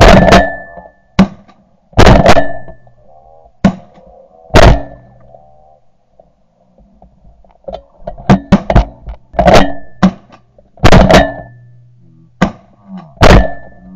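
A volley of shotgun shots from several hunters firing at a flock of bar-headed geese: about a dozen shots in two bursts, with a lull of a couple of seconds in between. Geese honk between the shots.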